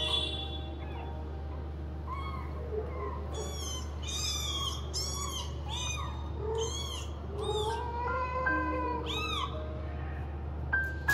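Young kittens mewing: about a dozen thin, high-pitched calls, each rising and falling, in quick succession through the middle, as they seek to nurse from their mother.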